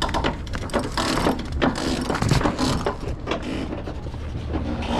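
Sailboat winch ratcheting in a run of uneven clicks as a halyard is cranked in under load, hoisting a person up the mast.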